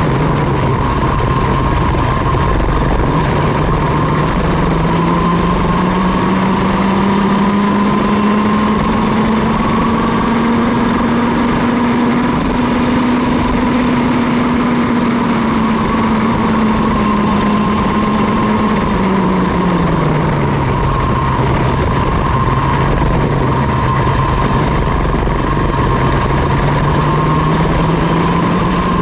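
Mini ROK kart's 60cc two-stroke engine at race speed. The revs climb steadily through the first half, fall sharply about twenty seconds in, then build again.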